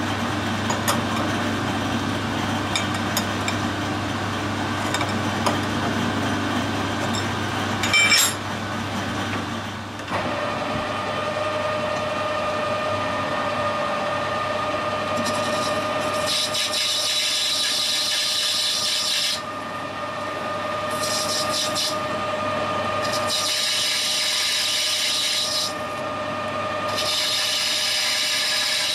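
Metal lathe running with a steady whine while a turning tool faces the end of a small bronze part held in a collet. Four times the cut bites, each a high hissing scrape lasting a second to a few seconds. There is a sharp knock about eight seconds in.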